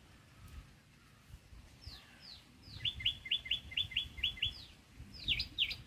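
A bird calling: three falling notes, then a quick run of about eight short notes, then two louder falling notes near the end.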